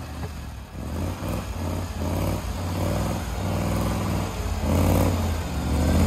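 GAZ-66 off-road truck's engine running under load as the truck moves, its sound building and loudest near the end.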